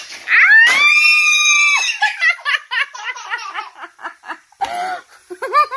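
A toddler's long, high-pitched excited squeal, then a run of quick giggling laughter.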